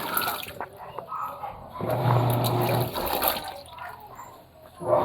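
Panasonic washing machine washing in blanket mode: the motor turns the drum in bursts of about a second, each with a low hum and water sloshing, about every three seconds.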